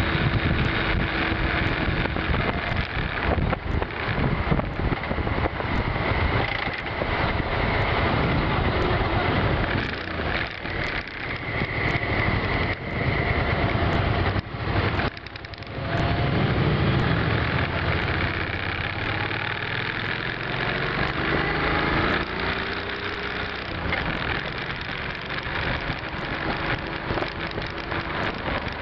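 V-twin cruiser motorcycle engine running on the move, mixed with heavy wind noise rushing over the microphone. The noise dips briefly about halfway through.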